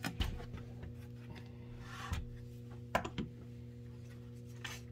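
Handling noises from a CD player's metal chassis being tipped over and set down on a workbench: a knock near the start, rubbing and scraping, then two sharp knocks in quick succession about three seconds in, over a steady low hum.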